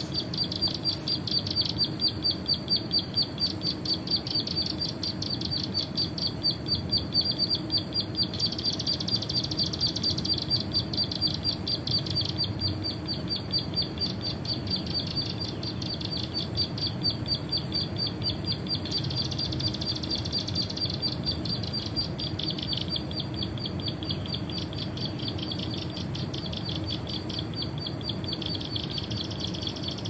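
Recorded plain prinia (perenjak sawah) song played from a handheld phone as a bird lure: a fast, high trill of rapidly repeated notes, running in long runs with short breaks.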